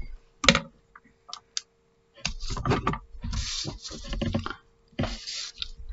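Handling noise of a drawing sheet on a tabletop: a knock, a few light clicks, then stretches of paper rustling and sliding as the sheet is moved and a pen is taken up, over a faint steady hum.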